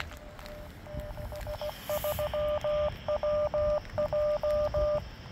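A 70-centimetre amateur radio repeater sending its Morse code identification, heard through the speaker of a Yaesu FT3D handheld transceiver: one steady-pitched tone keyed in short and long beeps, starting about a second in and stopping near the end.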